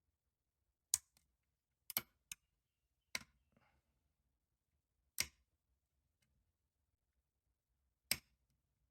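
Pin-tumbler challenge lock being picked: about six sharp metallic clicks, irregularly spaced, as the pick lifts pins and they set.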